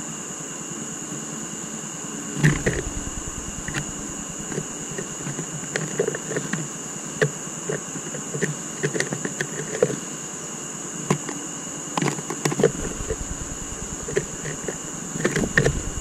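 Blue tits on the wooden floor of a bird feeder strewn with sunflower seeds: irregular light taps, clicks and seed rustles, with a few heavier thumps as birds land and leave. A steady high-pitched tone runs throughout.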